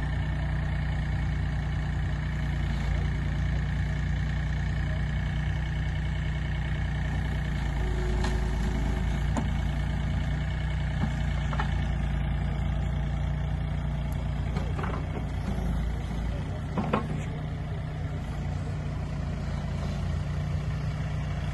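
Wacker Neuson EZ38 mini excavator's diesel engine running steadily while the machine digs, with a few sharp knocks as the bucket works in the ground.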